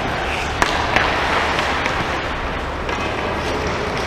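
Ice hockey play: skates scraping and carving the ice in a steady hiss, with two sharp stick or puck clacks about half a second and a second in.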